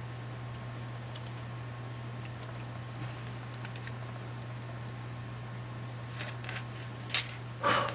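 Light clicks and taps from a tempered glass screen protector being handled, a few faint ones at first, then a quick cluster with the loudest tap near the end, over a steady low hum.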